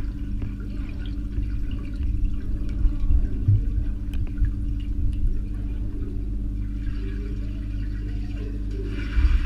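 Muffled, low rumbling water movement heard through an underwater microphone as a dog paddles and a handler wades in a pool, over a steady hum, with a few louder thumps about two to three seconds in and again near the end.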